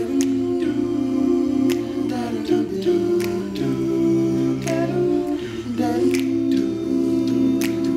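All-male a cappella group singing the opening bars: wordless, held chords in close harmony, with sharp clicks on the beat every second or so.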